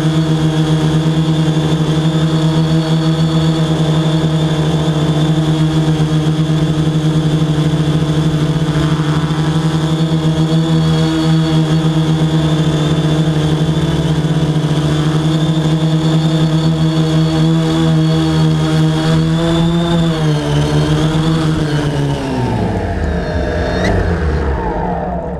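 Quadcopter drone's motors and propellers buzzing steadily in flight, a loud even whine. Near the end the pitch wavers as it comes down, then slides down as the motors wind down after it lands on the grass.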